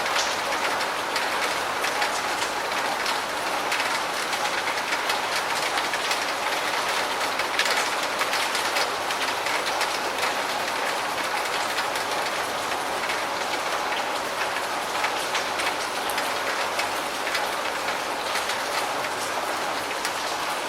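Steady rain falling, a dense even patter of drops with no let-up.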